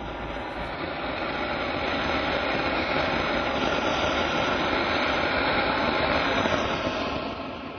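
Seeta Geeta firework fountain spraying a jet of sparks, a steady rushing hiss. It builds over the first two seconds and dies away near the end.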